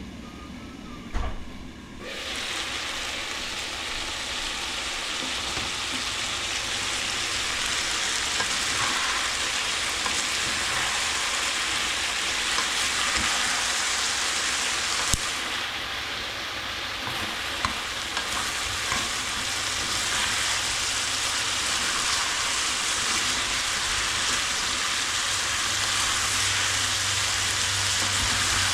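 Food sizzling in hot oil in a pan, a steady frying hiss that starts about two seconds in.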